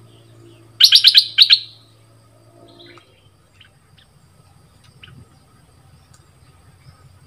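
A bulbul (the southern Thai 'dok taeng' bird) singing a quick, loud phrase of about five clear notes about a second in, followed by a few faint short chirps.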